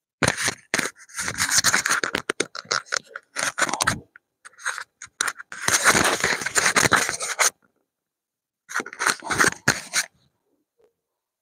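Scraping and rubbing close to the microphone, in three rapid, irregular stretches of several seconds each, with dead silence between them.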